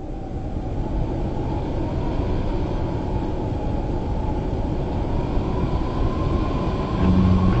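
A low, rushing rumble that fades in and then holds steady, with a faint whine slowly rising in pitch. Near the end, music with steady low guitar notes comes in over it.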